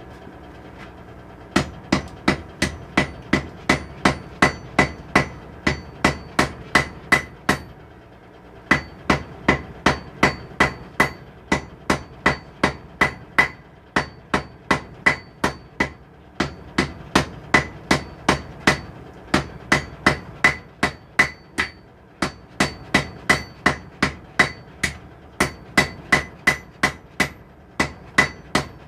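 Hand hammer striking hot steel on an anvil in a steady rhythm of about two to three blows a second, each blow leaving a bright anvil ring, with a few short pauses between runs of strikes. This is drawing out the reins of blacksmith tongs.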